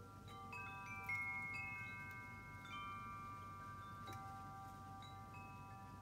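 Wind chimes ringing faintly, struck every second or so, several clear notes overlapping and each ringing on for seconds; the loudest strike comes about a second in.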